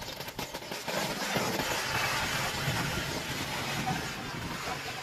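Gas welding torch flame hissing steadily as it melts aluminium onto a steel bar.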